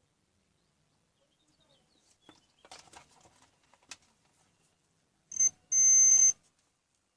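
An electronic beeper sounding twice: a short beep, then a longer one lasting about half a second. Faint clicks and handling noises come before it.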